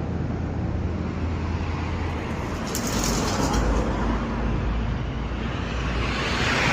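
Road traffic: steady vehicle noise with a low rumble, swelling as vehicles pass, one about three seconds in and another near the end.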